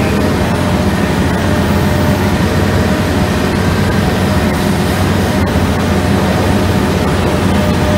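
AQ6 hydraulic drum cutter on a Komatsu PC650 excavator cutting into shale and medium-hard limestone, together with the excavator's diesel engine and hydraulics running under load: a loud, steady grinding din over a deep hum.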